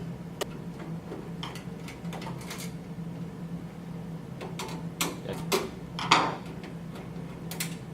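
Scattered small clicks and knocks of a mini-ITX computer case's rear screws being unscrewed and the case being handled, with a louder knock about six seconds in.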